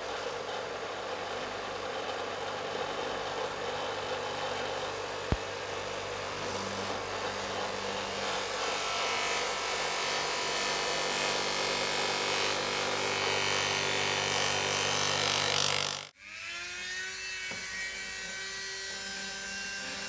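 Bench grinder with a buffing wheel running steadily while a rusty steel bayonet blade is pressed against the wheel; the hiss of the blade on the buff grows louder through the middle, with a single sharp click about five seconds in. About sixteen seconds in the sound cuts off abruptly and a small handheld rotary tool spins up, its whine rising and then holding steady.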